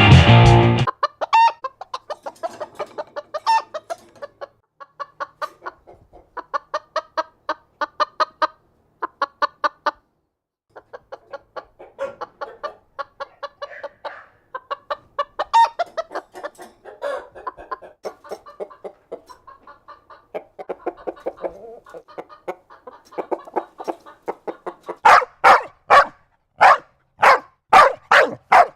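Hens clucking in runs of quick short clucks, with a brief pause partway through. Near the end comes a louder series of about eight sharp calls, roughly two a second.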